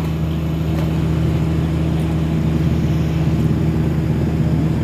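Steady low machine hum, an even drone that does not change.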